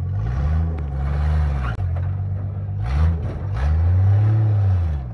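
Rock crawler's engine revving in three bursts, each rising and then falling in pitch. The last burst is the longest and loudest.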